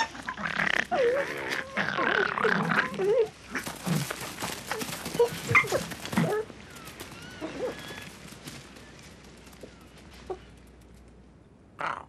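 Foxes yelping, whining and snarling in a scuffle over a puma's kill. The calls rise and fall in pitch and are densest and loudest for the first six seconds, then thin out. Two short harsh hiss-like sounds come near the end.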